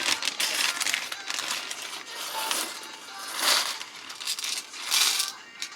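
Small hard plastic and metal keyboard parts clicking and rattling as they are handled, with louder rattles near the start and about 3.5 and 5 seconds in.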